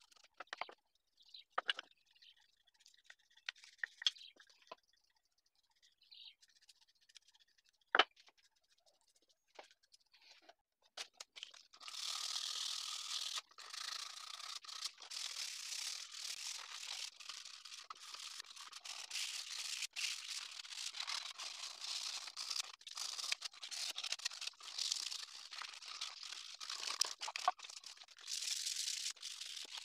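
Hand rubbing or sanding over a small sealed wooden box, a continuous scratchy scrubbing that starts about twelve seconds in. Before that there are only faint light taps and one sharp knock.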